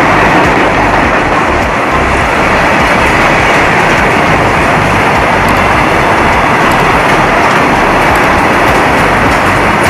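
Goods train behind a WAG-9H electric locomotive running past at high speed: a loud, steady rush of wheels on the rails.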